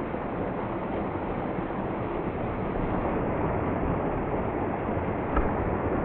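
Small mountain waterfall splashing down a rocky gully into a pool: a steady rush of falling water, with one brief knock near the end.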